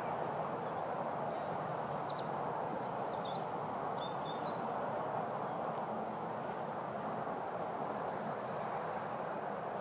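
Steady whooshing rush of an RC Freewing Su-35 model jet's twin electric ducted fans, heard from a distance as the jet flies low over the field.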